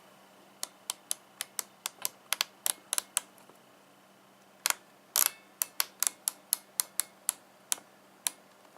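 Cougar Pro 3/8-inch drive quick-release ratchet with a 60-tooth mechanism, its pawl clicking over the gear as the handle is swung back and forth. Sharp clicks come about four to five a second in two runs, with a pause of about a second and a half between them.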